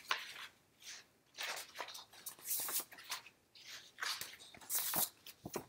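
Irregular rustling and crunching handling noises close to the microphone, a string of short scrapes and rustles with brief quiet gaps between them.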